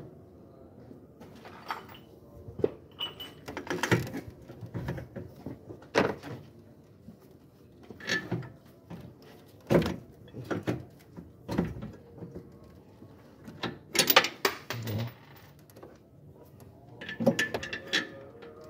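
Irregular metal clanks and clacks from a socket on a long extension bar being fitted and worked on the bolts of a newly installed engine mount: a dozen or so separate sharp knocks, some in quick clusters.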